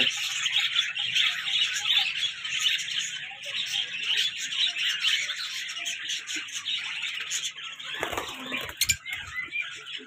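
Many caged lovebirds and other small parrots chirping at once in a dense, constant high chatter. About eight seconds in comes a brief louder flurry of flapping wings.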